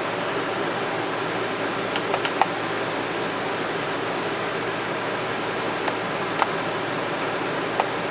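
A steady, even hiss of background noise, like a fan or air conditioning running, with a few faint short clicks about two seconds in and a few more near the end.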